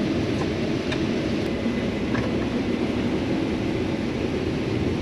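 Combine harvester running steadily while harvesting corn: a constant low drone with an even hiss above it.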